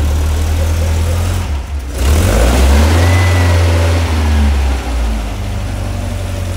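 Freshly built 1914cc air-cooled VW flat-four with dual 44 IDF Weber carburetors running on a test stand, idling, then revved once about two seconds in, its note rising and falling back toward idle over the next couple of seconds.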